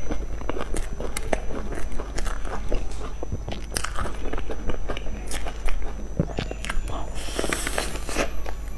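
Close-miked eating sounds: biting into and chewing soft cream puffs with a crumbly cookie-crust topping, with many small crackles and clicks. A bigger, crunchier bite comes near the end.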